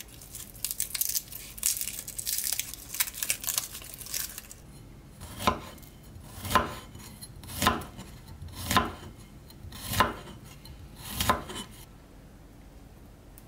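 Papery garlic skin crackling as a clove is peeled by hand, then a kitchen knife slicing a garlic clove against a wooden cutting board: six even cuts about a second apart.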